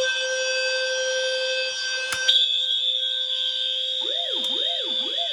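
Several fire alarm devices sounding at once: a steady buzzing horn tone under a shrill high tone. A second, louder high tone cuts in with a click about two seconds in, and a wailing siren tone rising and falling about twice a second joins about four seconds in.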